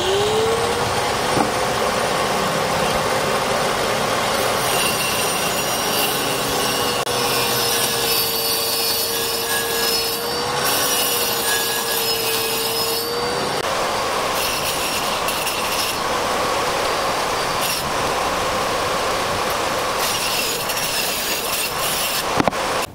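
Angle grinder rigged under a table as a saw with a circular blade, spinning up with a rising whine and running at full speed while the blade cuts a thin sheet fed through it. The sound stops suddenly near the end.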